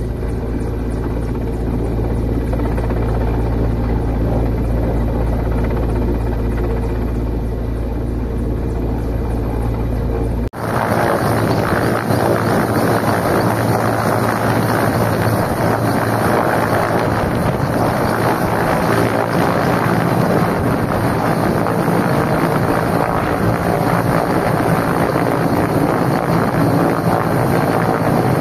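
Mi-8-type military transport helicopter hovering: a steady low drone of rotor and engines for about the first ten seconds. Then an abrupt change to close beneath the aircraft, where rotor wash and turbine noise make a loud, even rushing sound across the whole range.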